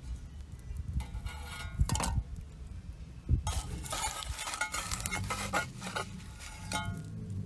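Metal parts clinking and scraping against each other in two spells of handling, the first about a second in and a longer one from about three and a half seconds in, over a steady low hum.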